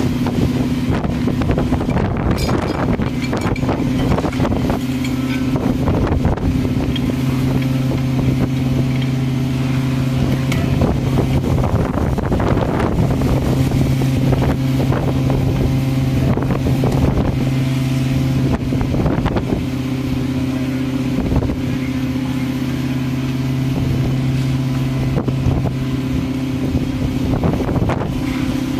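Fire engine's diesel engine running steadily at a constant pitch, with wind noise on the microphone and occasional knocks.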